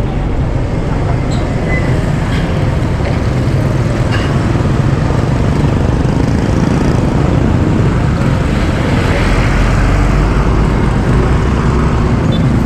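Steady road noise from a moving vehicle, heaviest in the low rumble.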